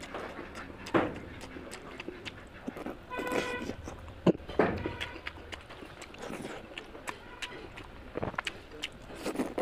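Close-up eating sounds of rice and oily mutton curry: wet chewing and repeated lip smacks and clicks. A brief pitched sound in the background about three seconds in.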